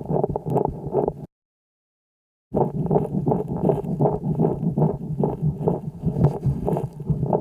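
Calf's lung sounds picked up by a homemade stethoscope microphone pressed to the chest: dense low breath noise with many short clicks, broken by about a second of total silence a little over a second in.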